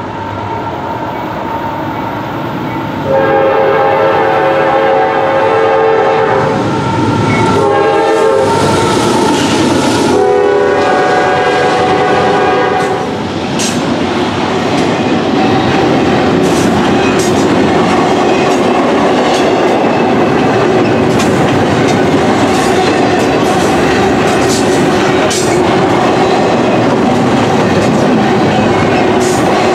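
Norfolk Southern diesel locomotive coming up and sounding its air horn in several long blasts from about three seconds in until about thirteen seconds in, the horn's pitch bending as the locomotive passes. After that, double-stack intermodal well cars roll by with a steady wheel rumble and frequent clicking over the rail joints.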